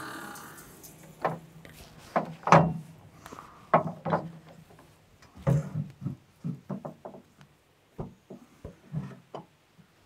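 Irregular knocks and metal clanks, about a dozen sharp hits with some ringing briefly, as a new carbide-tipped blade is fitted onto a homemade bandsaw sawmill.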